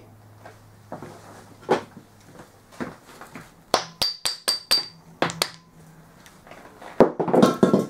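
Hammer tapping on the BMW F650GS gearbox in its aluminium engine case half to knock the gear cluster loose. There are a few single knocks, then a quick run of five metallic, ringing taps about four a second, two more knocks, and a clatter of metal parts near the end.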